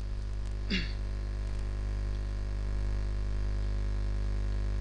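Steady electrical mains hum: a low buzz with a long stack of overtones, picked up on the recording. A brief short voice sound comes about three-quarters of a second in.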